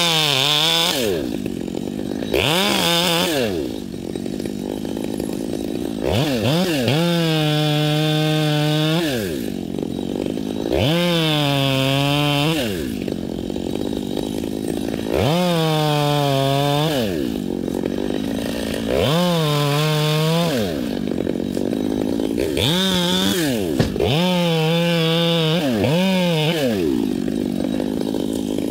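Chainsaw being throttled up and dropped back to idle about eight times, each burst holding high revs for a second or two with a slight sag, as when cutting into wood.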